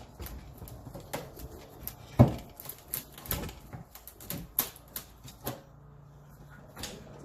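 Scattered clicks and knocks of parts and tools being handled, with one much louder knock about two seconds in.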